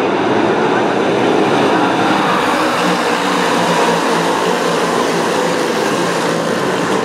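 A pack of dirt-track modified race cars running at racing speed, their V8 engines blending into one loud, steady drone of many engines at once.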